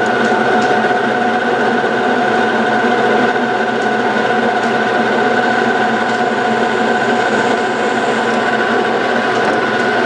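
Metal lathe running steadily with a constant whine while a center drill in the tailstock chuck cuts a starting center hole in a spinning aluminum casting, to locate the exact center before drilling.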